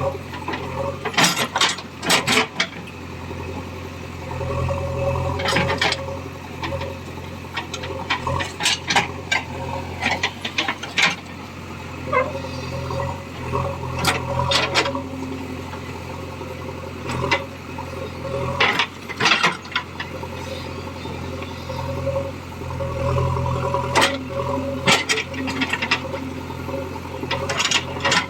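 JCB 3DX backhoe loader's diesel engine running steadily, rising a little twice as it works, with many short sharp clanks and rattles throughout.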